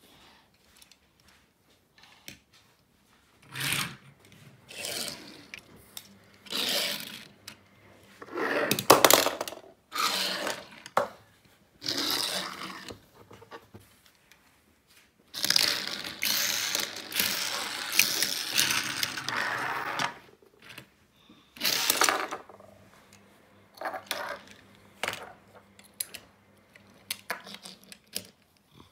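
Small die-cast toy cars pushed and rolled across a wooden surface: a run of short scraping, rattling strokes with clinks, and one longer stretch of scraping of about four seconds past the middle.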